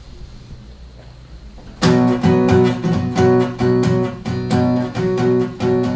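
Acoustic guitar strummed in a steady rhythm of chords, starting about two seconds in after a short quiet pause: the opening of a song before the singing comes in.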